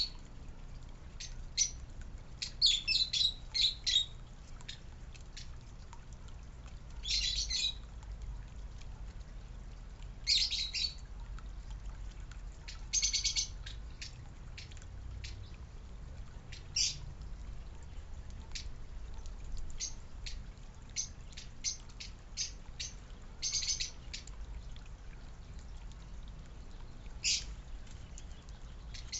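Small backyard birds chirping: clusters of short, high chirps every few seconds, the busiest run about three seconds in, with scattered single chips between them.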